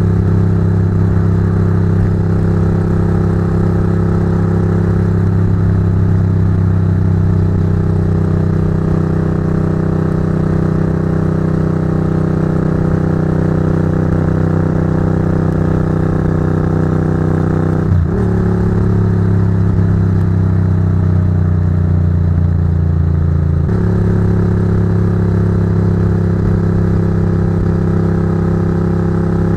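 Ducati GT1000's air-cooled L-twin engine with Termignoni exhausts, running steadily at cruising speed and heard close to the pipes. About two-thirds of the way through there is a brief knock, and the exhaust note changes and sinks slightly for several seconds. It then snaps back to the steady cruising note.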